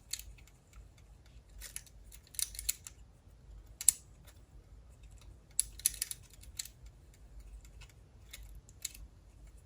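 Small scattered clicks and light scraping of a disassembled cassette walkman's plastic and metal parts being handled, in short irregular clusters with one sharper click a little before halfway.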